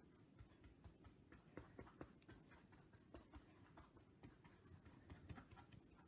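Faint, irregular ticks and scratches of a paintbrush working paint onto a small canvas.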